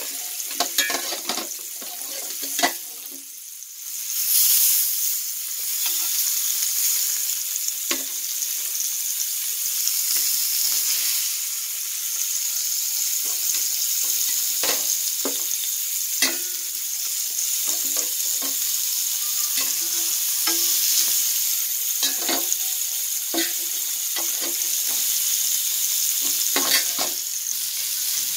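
Marinated sardines sizzling in coconut oil on a cast-iron tawa, a steady hiss with frequent short clicks and taps of metal utensils against the griddle as more fish are laid on.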